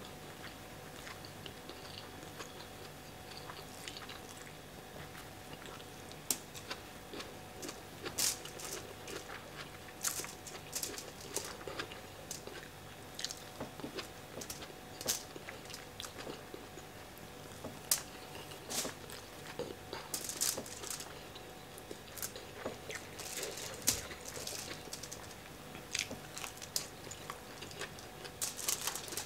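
Close-miked chewing and mouth sounds of a person eating jollof rice by hand, with irregular wet clicks and small crunches.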